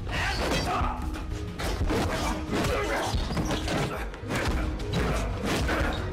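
Film fight-scene soundtrack: background music with punch and body-impact sound effects landing in quick succession.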